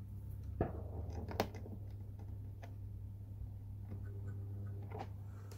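Three sharp clicks and a few fainter ticks from working the controls of an HO model railway, over a steady low hum.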